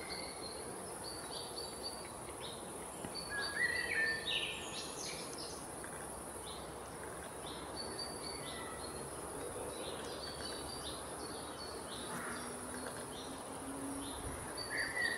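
Outdoor ambience: small birds chirping and calling on and off, loudest about four seconds in, over a steady high-pitched hiss and a broad background rush.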